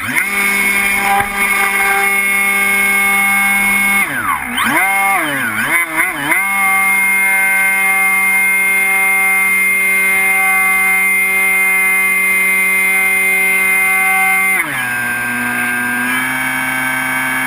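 Skywalker 1900 FPV glider's electric motor and pusher propeller running, a steady whine with several tones. About four seconds in the pitch dips and surges a few times as the throttle is worked, then holds steady. Near the end it drops to a lower steady pitch as the throttle is eased back.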